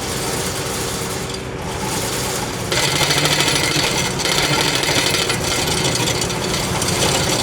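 Diesel engine of a compact loader running under load, with a loud grating, scraping rattle that starts about three seconds in and goes on steadily.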